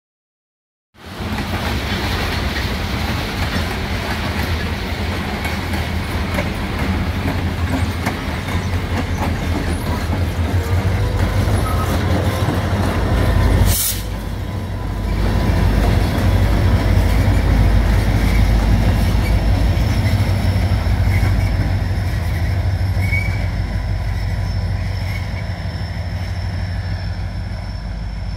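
A freight train rolls past: cars and wheels rumble on the rails, mixed with the low running of EMD diesel locomotives (three SD40M-2s and a GP40-3) shoving at the rear. The engine sound swells as the locomotives go by about halfway through, and one sharp knock is heard just before that.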